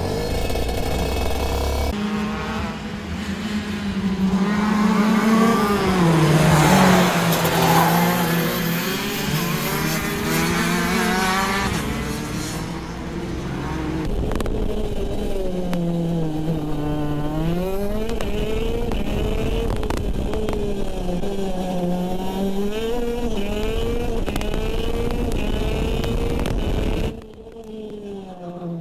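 Racing go-kart's two-stroke engine heard onboard at full pace, its pitch climbing on the straights and dropping repeatedly into corners. The sound jumps abruptly a few times.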